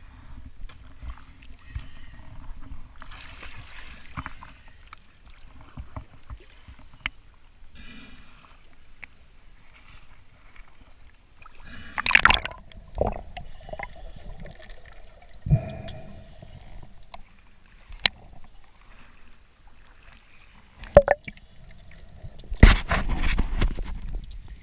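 Water sloshing and gurgling around a camera at the river surface, then muffled underwater noise broken by a few sharp splashy bursts, the loudest and longest near the end.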